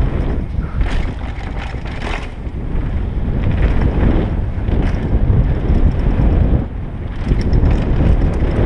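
Wind buffeting a helmet-mounted camera's microphone during a fast descent on a 2013 GT Glory downhill mountain bike, over a steady rumble of tyres on a dirt trail. Several sharp rattles of the bike over bumps stand out.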